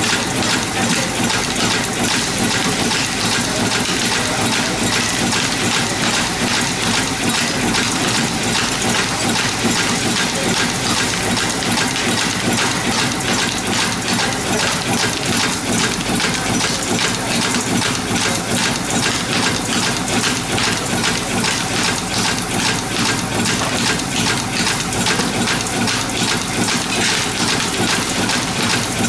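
YFM-003 automatic zipper-slider cap and spring assembly machine running in its automatic cycle: the vibratory bowl feeder buzzes and rattles the caps steadily while the spring-cutting and punching heads tick over in rapid, regular clicks.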